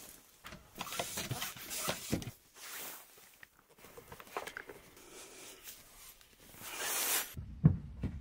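Canvas of a Naturehike 12X air tent rustling and being handled while the tent is pitched, with scattered clicks. A hiss swells near the end and stops abruptly, followed by one low thump.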